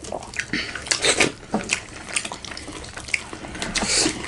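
Close-miked wet eating sounds from a meal of dal bhat with chicken gravy: chewing and smacking in a run of short, irregular wet clicks.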